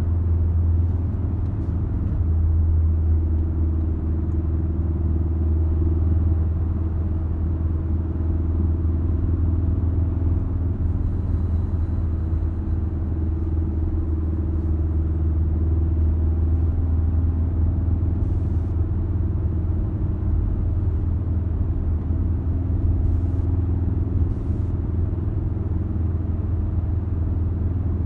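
Ford Focus RS heard from inside the cabin, cruising at a steady speed: an even, low engine and tyre drone that barely changes in pitch.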